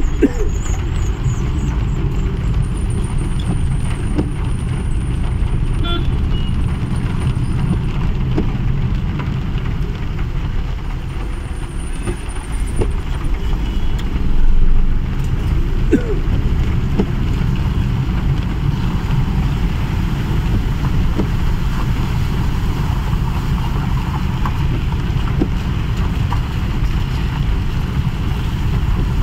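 Steady low rumble of a car's engine and tyres on a wet road, heard from inside the cabin while driving slowly in traffic, swelling briefly about halfway through.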